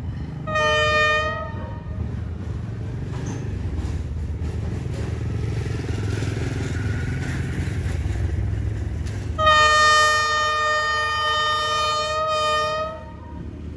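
D19E diesel locomotive sounding its air horn, several tones together: a short blast about half a second in, then a long blast of about three and a half seconds near the end. Under it runs the low rumble of the approaching locomotive and train.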